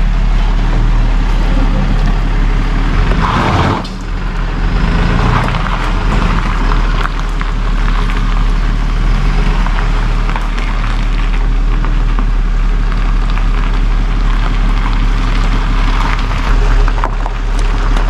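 Tow truck engine idling steadily, with a short clattering burst about three seconds in.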